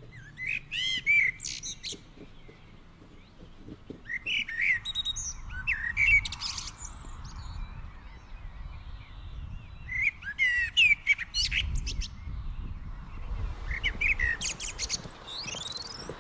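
Songbirds singing in four bouts of quick high chirps and sweeping notes, over a faint low rumble.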